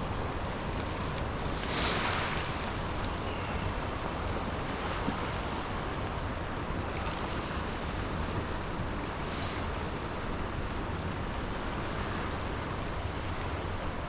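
Steady rush of water spilling over a small lake dam, the water running high after rain. A brief louder hiss comes about two seconds in.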